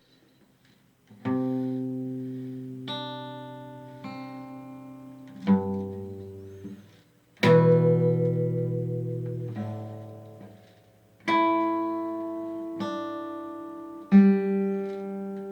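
Instrumental song intro on guitar: chords struck one at a time, each left to ring and fade before the next, about every one to two seconds, with no singing.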